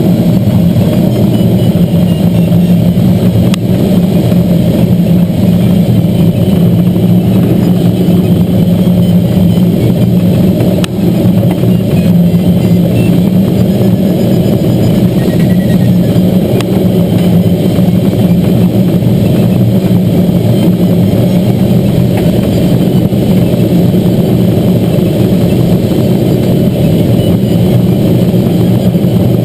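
Steady, loud drone of a tow plane's engine and propeller ahead, mixed with the rush of air over the canopy, heard from inside a Schweizer 1-34 glider's cockpit during an aerotow climb.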